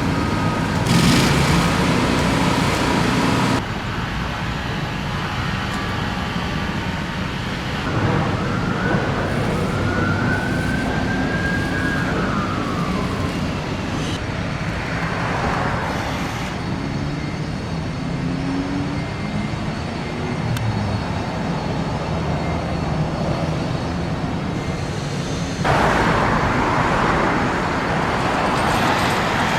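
Steady road traffic noise, with a siren wailing once, faint, its pitch rising and then falling about a third of the way in.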